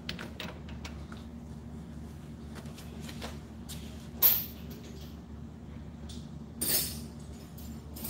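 Hands working on scooter parts at a workbench: scattered small clicks and handling sounds over a steady low hum, with two louder short knocks, one about four seconds in and one near the seven-second mark.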